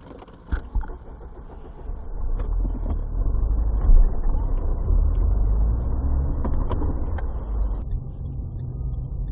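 Low driving rumble of a car on a snowy road heard from inside the cabin, with a few scattered knocks and a louder thump about four seconds in. The rumble turns duller near the end.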